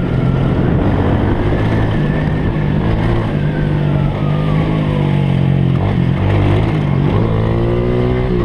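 Honda Pop's small single-cylinder four-stroke motorcycle engine running under throttle on a dirt trail. The revs rise and fall, then climb again near the end.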